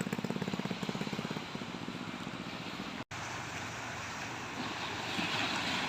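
A small engine running with a rapid, even beat, fading away over the first second or two, followed by a steady rushing background noise.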